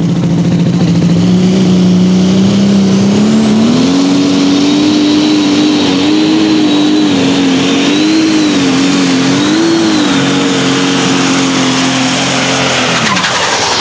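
John Deere light super stock pulling tractor's engine at full power, pulling the sled down the track. Its pitch climbs over the first few seconds, wavers up and down as the load shifts, and falls away near the end as the driver comes off the throttle. A high whistle climbs with it and holds steady over the engine until that drop.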